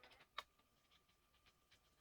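Near silence with a few faint, scattered small clicks, one sharper click about half a second in, over a faint steady high tone.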